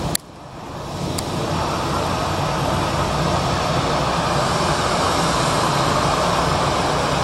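Airbus A321 jet engines at low taxi power as the airliner taxis close by: a steady rushing rumble. The sound cuts out sharply just after the start and swells back over about a second and a half.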